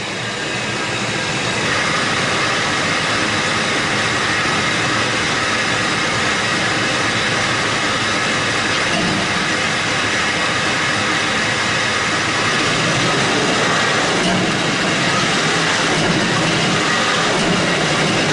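2004 Ford F-150 running in drive with its wheels spinning, the engine and drivetrain giving a steady mechanical rumble. The sound gets a little louder about a second and a half in as the throttle is raised, then holds steady.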